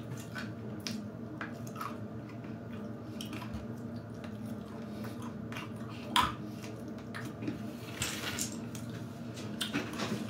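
A person chewing a snack close to the microphone, with scattered small mouth clicks and a louder knock about six seconds in, over a steady low hum.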